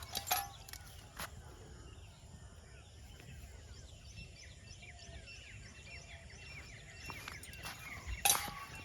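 Many small birds chirping over a low, steady outdoor rumble, with a few sharp clicks or taps, the loudest near the end.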